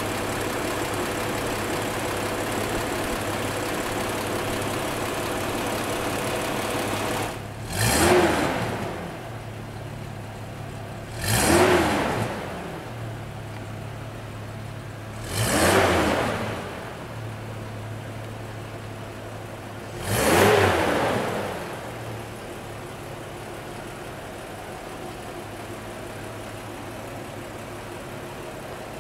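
Freshly restored 1976 Toyota FJ45 pickup's 2F inline-six petrol engine idling steadily, then revved four times in short throttle blips about four seconds apart, each rising and falling in pitch before dropping back to idle. The idle is quieter from about seven seconds in.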